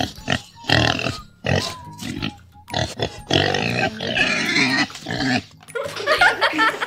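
Close-up mouth sounds of someone eating spicy tteokbokki: chewing and breathy, snuffling bursts in several runs, a reaction to the heat of the dish.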